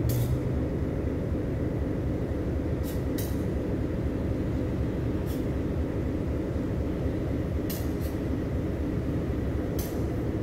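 Diesel freight locomotive idling while stopped: a steady low rumble, with a few brief high-pitched ticks scattered through it.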